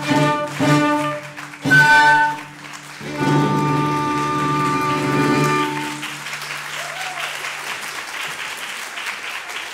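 A chamber ensemble of violin, cello, accordion and clarinet ends a piece with a few short chords and then a held final chord, which stops about six seconds in. Audience applause follows.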